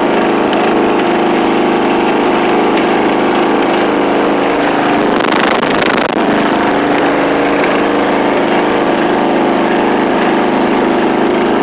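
Riding lawn mower engine running loud and steady through a custom exhaust, with a brief rougher, noisier stretch about five seconds in.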